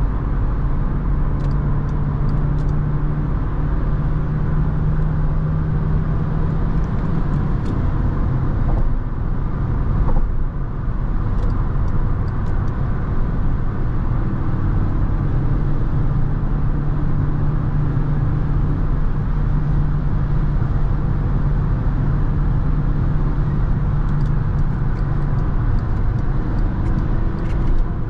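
Cabin sound of a Skoda Octavia II's 1.6 MPI four-cylinder petrol engine cruising at highway speed, a steady engine drone over tyre and road noise. The engine note eases off for a few seconds about a third of the way in, then settles back.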